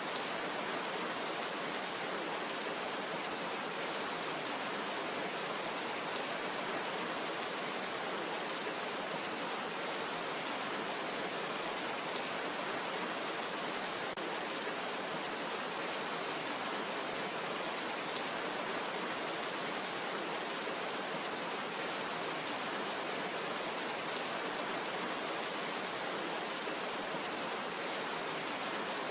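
Steady, even rain falling, a constant hiss with fine scattered drop patter.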